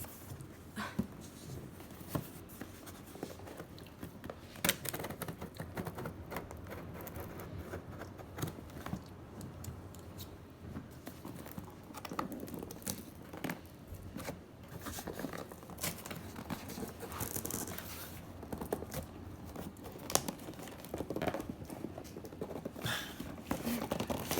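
Packaging being opened by hand: tearing and crinkling of the wrapping, with scattered irregular clicks, scrapes and rustles of handling.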